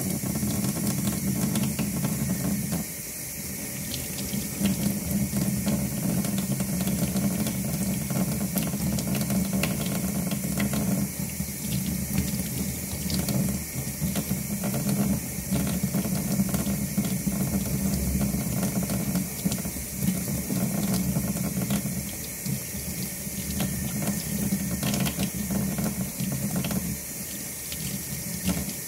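Water running from a faucet into a utility sink. The stream's sound shifts in loudness and tone several times as hands move in and out of it while washing with a bar of soap.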